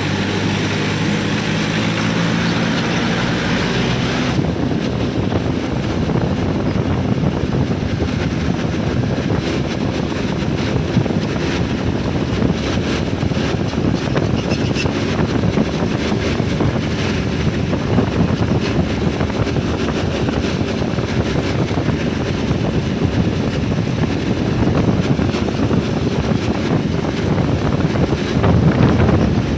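A diesel engine idling for the first few seconds, then, about four seconds in, a steady low rumble with wind buffeting the microphone that lasts to the end.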